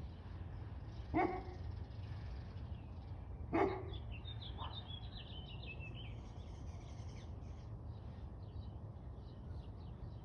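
A dog barks twice, about a second in and again around three and a half seconds, with a fainter third bark just after. Between about four and seven seconds a bird sings a run of quick high chirps, over steady low background rumble.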